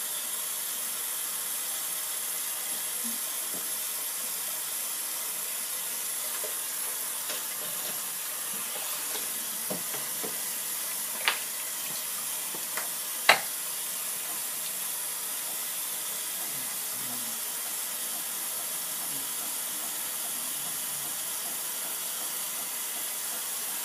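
Hot water running steadily from a bathroom tap into the sink, an even hiss. Two short sharp knocks come a couple of seconds apart in the middle, the second louder.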